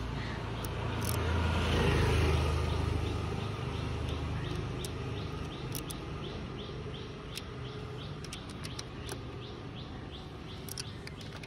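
A motor vehicle rumbles past, loudest about two seconds in, while a small bird chirps over and over, about twice a second.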